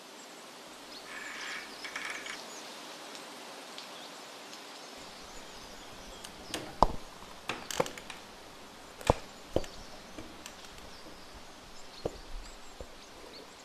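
Irregular sharp knocks and clicks of a wooden door and its latch being handled and pushed, starting about halfway through.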